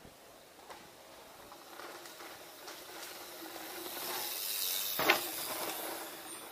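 A mountain bike coming down the dirt trail and passing close by: tyre noise on the dirt growing louder to about five seconds in, with a sharp clack as it goes past, then fading.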